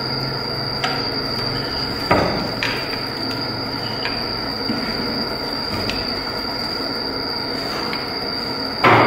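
Wooden handlooms knocking as the weavers beat the weft into the cloth with the reed. The knocks come at uneven intervals, a few in all, the loudest just before the end.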